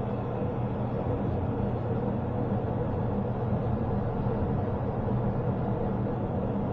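Steady low machine hum with several steady tones beneath an even rushing noise, unchanging throughout.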